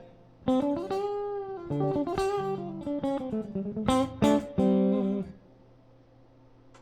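Ibanez AZ24S electric guitar played clean: picked notes and chords, with one held note bent and wavered about a second in. The playing stops about five seconds in, leaving faint amp hiss.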